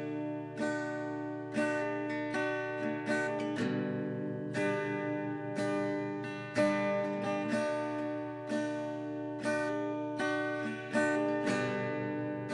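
Acoustic guitar playing the instrumental intro of a country song: a steady chord pattern, each chord struck and left to ring, a new one about every second, with no voice.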